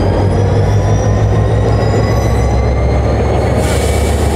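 NIR 111 Class locomotive's EMD 12-cylinder two-stroke diesel running with a deep, steady hum as the locomotive creeps past at walking pace, with faint high squealing tones from the wheels. A high hiss comes in near the end.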